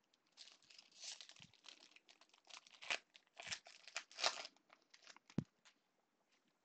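Foil wrapper of a Bowman baseball card pack being torn open and crinkled by hand, in irregular bursts of crackling tearing, loudest about four seconds in, followed by a single sharp click.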